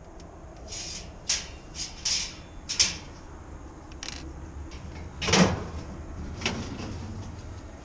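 Handling knocks and clicks on the sandwich cooler's cabinet, likely a panel or door being opened to get at the evaporator: a run of short sharp knocks, the loudest about five seconds in, over a low steady hum.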